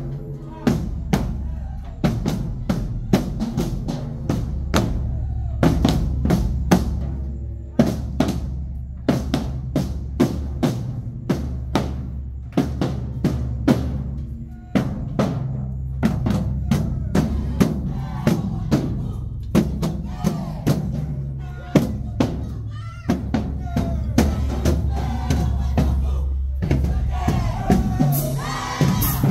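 High school marching band drumline playing a marching cadence: snare and bass drums beating a steady, driving rhythm of sharp strikes over a deep bass-drum pulse.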